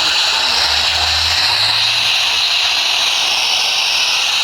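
Steady radio static hiss from a weather radio receiver in the dead air between alert broadcasts, with a faint low hum for a second or so near the start.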